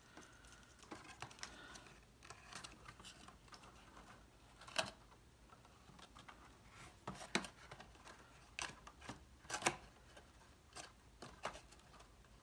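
Cardstock pieces and a metal brad fastener being handled: scattered light clicks and taps with faint paper rustling, a few sharper clicks in the second half.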